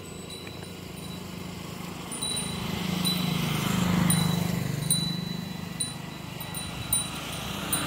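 Small bells tinkling on and off over a steady high ring, while a low engine-like hum swells to a peak about four seconds in and then fades, like a vehicle passing.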